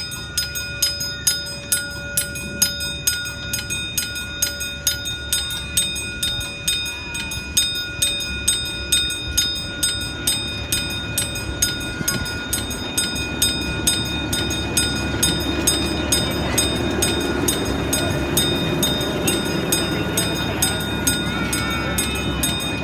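Railroad crossing bell ringing steadily at about two strokes a second. From about halfway in, an Allan Herschell S-24 miniature train rumbles past, growing louder under the bell.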